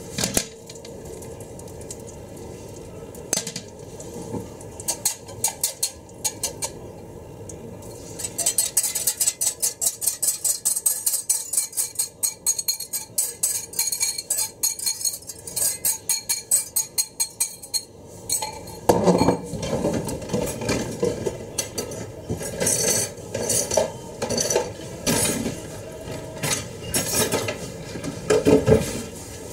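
Wire whisk clinking against a glass bowl as egg mixture is stirred and scraped out into a frying pan: scattered clinks at first, then a long run of quick rhythmic clinking, then louder clatter of the bowl and whisk in the second half.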